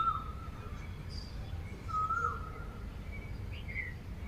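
Birds calling: a short whistled call with a dip at its end, repeated about two seconds apart, with fainter high chirps from other birds between, over a steady low background hum.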